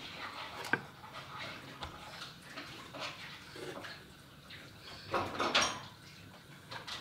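A toddler handling wooden picture puzzle boards, with small knocks and clicks, and a brief high-pitched vocal sound from the child about five seconds in.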